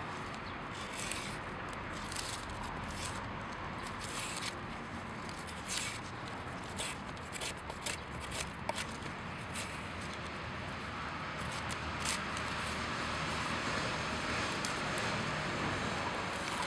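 Bark being scraped and peeled in strips from a green poplar branch: irregular short scraping and tearing strokes over a steady background hiss.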